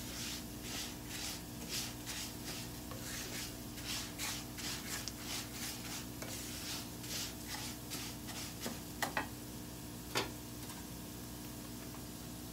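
Rice grains toasting in oil in a nonstick frying pan, stirred and scraped around with a spatula in even scratchy strokes about twice a second. The stirring stops about two-thirds of the way through, followed by a few sharp knocks.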